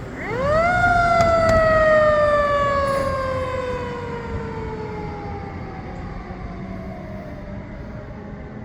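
Fire engine siren winding up quickly to a high pitch within the first second, then sliding slowly down in pitch and fading over the next several seconds, with a low vehicle rumble underneath.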